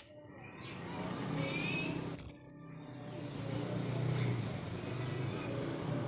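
Blue-crowned hanging parrot (serindit) giving one short, shrill, high-pitched call about two seconds in, with a faint low hum underneath.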